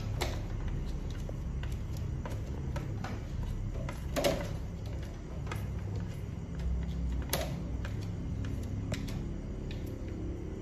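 Scattered light clicks and knocks, the loudest about four seconds in and another about seven seconds in, over a low steady rumble.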